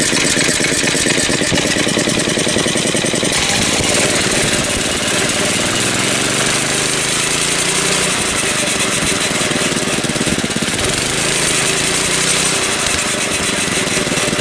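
Small single-cylinder OHV go-kart engine running, driving a belt torque converter whose pulleys and belt spin with it. From about four seconds in, the engine pitch rises and falls a few times as it is revved.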